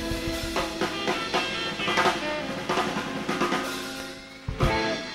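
Live blues band closing out a song: the drum kit plays fills and rolls with snare, bass drum and cymbal hits over held guitar and bass chords, ending in one big accented hit about four and a half seconds in that is left to ring and fade.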